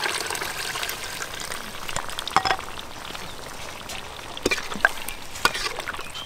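Wok of frying mixture sizzling steadily as a milky liquid goes in, with a metal spatula stirring and scraping against the wok in several sharp clicks, most in the second half.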